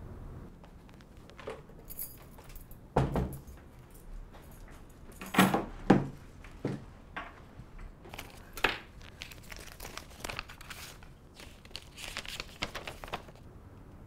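Handling noises: a few knocks and a jingle as a leather bag, phone and keys are set down on a desk, then paper crinkling near the end as a letter is unfolded.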